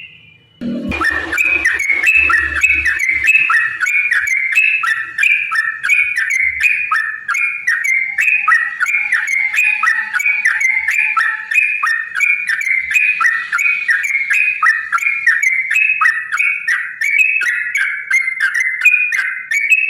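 Yellow-vented bulbul singing a long, unbroken run of rapid chattering, whistled notes, the 'ropel panjang' song that keepers use to get other bulbuls to sing. It starts just under a second in after a brief silence.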